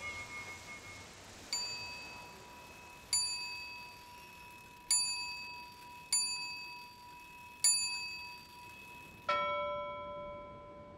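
Bell-like metallic strikes ringing out one at a time at uneven intervals, five on the same note and each dying away, then a lower-pitched strike near the end.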